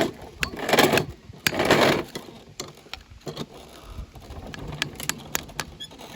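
Hammer tapping a screwdriver set against a bolt broken off inside a mower blade spindle, a series of sharp, irregularly spaced taps to work the broken bolt loose and turn it out.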